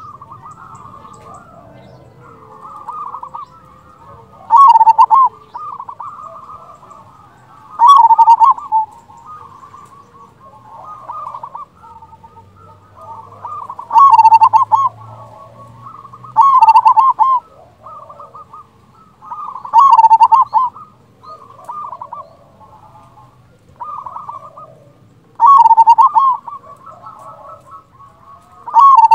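Local-strain zebra dove (perkutut) singing: loud phrases of quick rolling, trilled coos repeated about every three seconds, with quieter coos in between.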